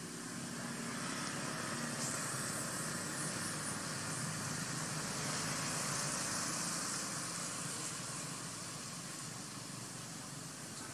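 Steady outdoor background hiss with a low rumble, swelling slightly in the middle and easing toward the end.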